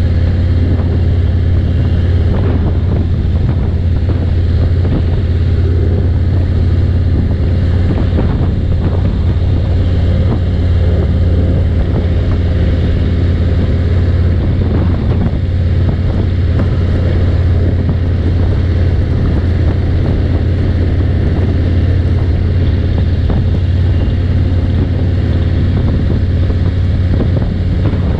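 Harley-Davidson Road King's V-twin engine running steadily at highway cruising speed, with wind noise over the microphone.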